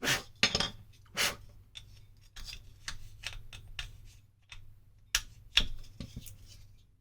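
Short, noisy scraping and rubbing strokes of hand work on a small part: three sharp strokes in the first second and a couple more just past five seconds, with fainter rubbing between.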